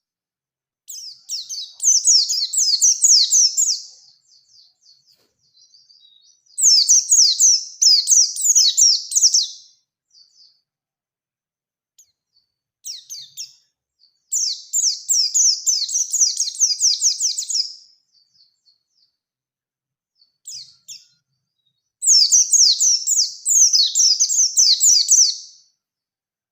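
Bustomi pleci (white-eye) in full song, singing fast, high-pitched rolling phrases of about three seconds each, four times, with a few short chirps in the gaps between.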